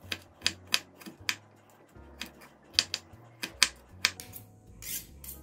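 Kitchen knife chopping onion on a wooden cutting board: an uneven run of sharp taps of the blade striking the wood, about three a second.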